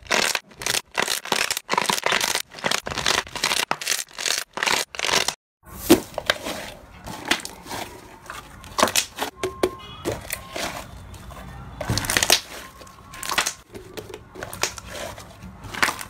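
Hands pressing and squishing slime, making dense, rapid crackling and popping as air pockets burst. After a short break about five seconds in, slime is kneaded and stretched between the fingers with sparser squishy pops.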